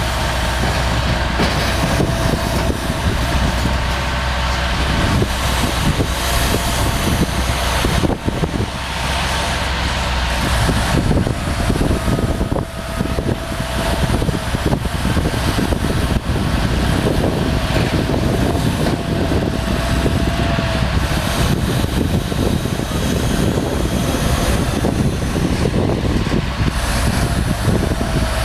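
Hitachi EX400 hydraulic excavator running with its long-reach front working: a steady diesel engine hum under a rough mechanical noise, with a thin whine that wavers slightly in pitch.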